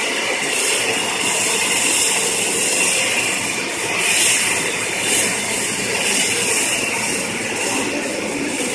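Jet engines of a twin-engine widebody airliner running as it rolls along the runway for takeoff: a steady rushing noise with a strong hiss that swells slightly now and then.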